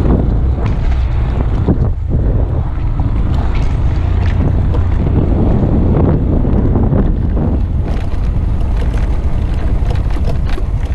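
Honda Grom's single-cylinder engine running as the minibike rides across bumpy grass, with heavy wind buffeting on the microphone and a few light knocks in the last few seconds.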